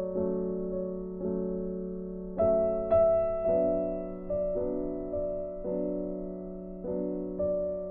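Slow, gentle background music: sustained chords with a new chord struck about every second and fading away.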